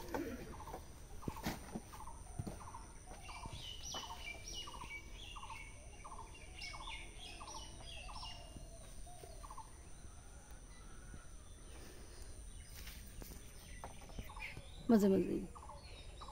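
Birds calling: a regular series of short, falling notes, about two a second, that stops about nine seconds in, with higher chirps over it for a few seconds. A brief voice is heard near the end.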